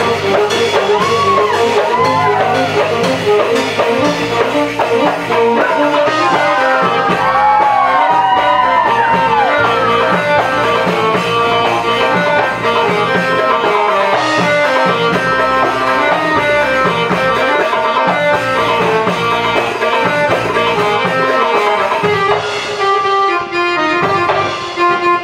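Arabic-style dance music played live on an electronic keyboard, with percussion keeping a steady beat and a bending, ornamented melody line.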